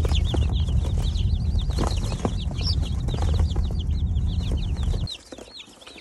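Day-old brown laying-hen chicks peeping, a dense stream of short high cheeps from a boxful of chicks. A loud low rumble runs under them and stops abruptly about five seconds in.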